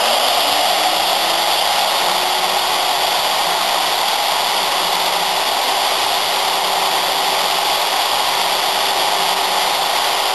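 CNC router spindle running steadily: an even, loud rushing whir with a faint hum that rises slightly over the first few seconds and then holds.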